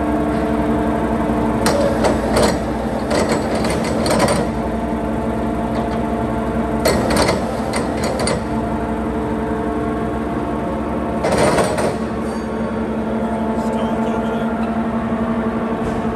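Blanchard No. 20 vertical rotary surface grinder running: a steady hum with several even tones, broken by four short, louder noisy bursts.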